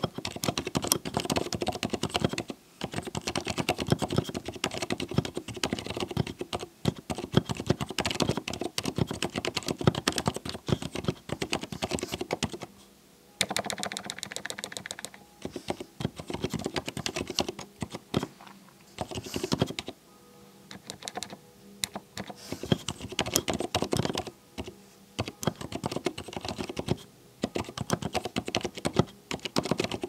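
Continuous touch-typing on a custom mechanical keyboard with Cherry MX Silent Red switches: rapid, dense key presses with a soft, mushy sound and a few short pauses.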